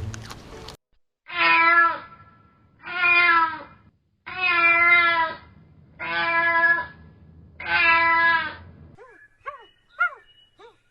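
An animal calling: five drawn-out, wavering calls about a second and a half apart, followed near the end by a run of short, quick chirps.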